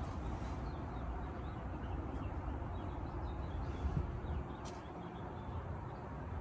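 Outdoor ambience: a fluctuating low rumble of wind on the microphone, with faint scattered bird chirps and a single sharp click about two-thirds of the way through.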